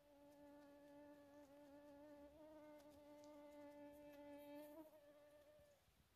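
A flying insect buzzing close to the microphone: one steady, slightly wavering hum with overtones, loudest a little before the end and then fading away.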